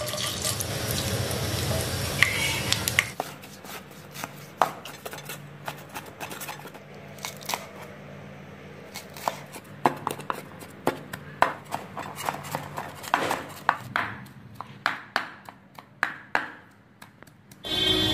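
Whole spices (bay leaf, cardamom, cloves, cinnamon, star anise, caraway) sizzle in hot oil for about three seconds. Then a cleaver chops ginger, mint and green chillies on a cutting board in quick, irregular strokes. Near the end a loud sizzle of hot oil starts again.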